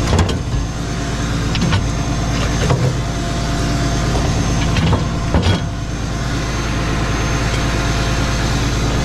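Idling vehicle engine, most likely the tow truck's, a steady low hum, with a few sharp metallic clanks and knocks over it, the loudest about five seconds in.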